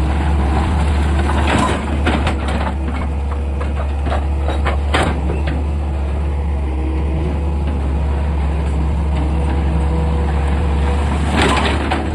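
Excavator's diesel engine running steadily under load, with a few sharp knocks near the start, in the middle and near the end.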